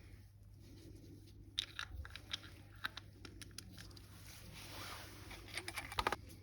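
Small hard clicks and rattles of metal parts and tools being handled, in scattered runs with a louder cluster near the end, over a steady low hum.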